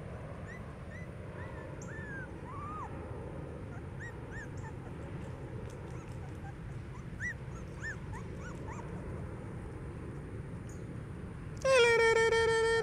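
Very young puppies giving short, faint, rising-and-falling squeaks and whimpers, scattered and irregular. About a second before the end, a much louder steady pitched tone with many overtones starts.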